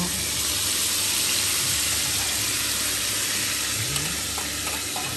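Hot oil sizzling steadily in a small wok around fried mackerel as a fish-sauce, sugar, garlic and chili sauce is poured over it.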